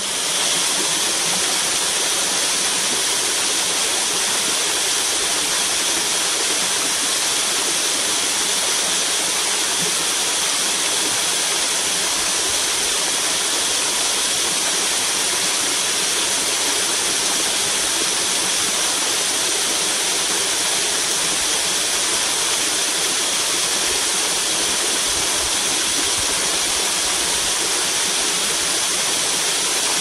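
Small waterfall, thin streams of water pouring over a rock ledge and splashing below: a steady, even rush of falling water.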